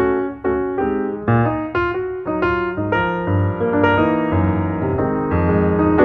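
Piano music: a melody of separate notes over chords and low bass notes.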